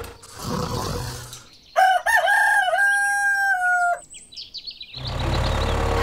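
A rooster crowing once, a single cock-a-doodle-doo about two seconds long that cuts off abruptly, followed by a few quick, falling high-pitched bird chirps.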